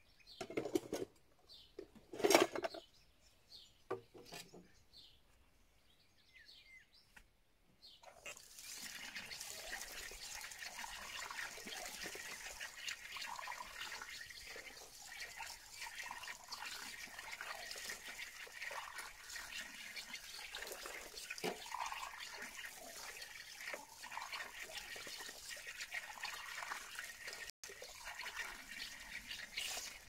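Dishes and glasses clinking in a plastic washing-up basin. About eight seconds in, an outdoor tap is opened and water runs steadily from it while the glasses are washed under it, with occasional soft clinks.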